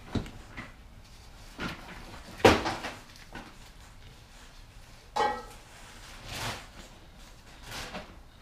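Handling noises as a new camshaft is unwrapped from its packaging: scattered knocks and rustles, the loudest a knock about two and a half seconds in, and a short squeak about five seconds in.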